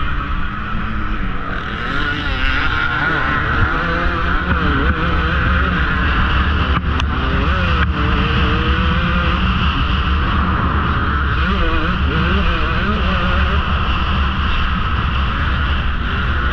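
KTM 150 XC-W two-stroke single-cylinder dirt bike engine at race speed, its revs rising and falling through the gears, with steady wind rush on the helmet-camera microphone. Two sharp knocks about a second apart, around the middle.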